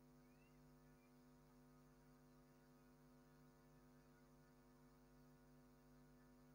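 Near silence: a faint steady electrical mains hum.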